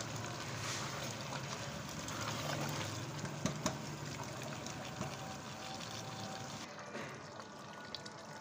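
Potato and eggplant curry sizzling and bubbling in its own juices in an aluminium pressure cooker pot as it is stirred with a spatula, with a few light knocks of the spatula on the pot about three to four seconds in. The sizzle gets a little quieter near the end.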